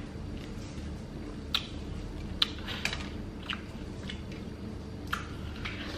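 A person chewing a mouthful of watermelon close to the microphone, with irregular wet, crisp clicks.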